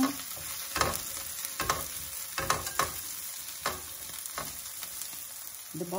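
Chopped onions sizzling in vegetable oil in a frying pan, nearly done frying. A metal slotted spatula stirs them, scraping and tapping against the pan about once a second.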